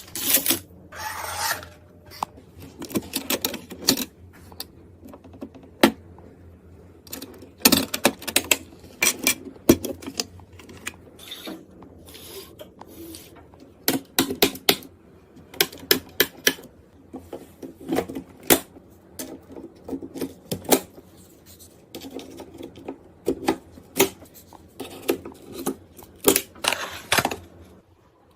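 Irregular sharp clicks, taps and small knocks of hard plastic and metal parts being handled and fitted during a PC build.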